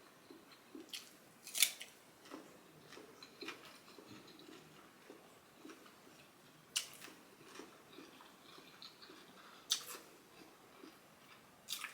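Close-miked eating: steady soft chewing, with three sharp crisp crunches or clicks.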